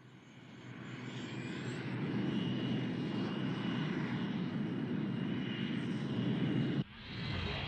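Jet-like engine roar of a giant robot (mobile suit) in an anime sound effect. It swells up over the first two seconds, then holds steady with a thin high whine on top, and cuts off abruptly about seven seconds in as a new rush of sound begins.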